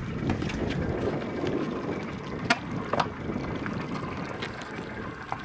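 Sea water lapping and sloshing against a small boat's hull, with wind on the microphone, and two sharp clicks about two and a half and three seconds in.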